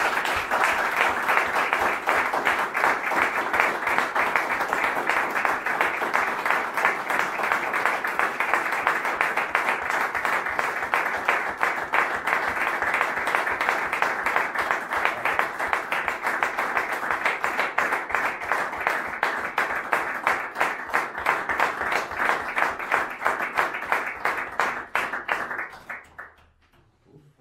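Long applause from a roomful of people: dense, steady hand clapping that thins into scattered claps and dies away near the end.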